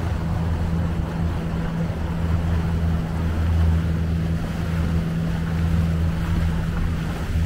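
Small outboard-powered motorboat under way, likely a Tahoe T16: a steady low engine drone with wind and rushing water around the hull.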